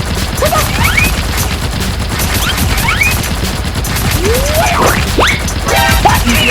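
Rapid, continuous gunfire sound effects for a blaster fight, a dense stream of shots with a few short rising whistling sweeps over them.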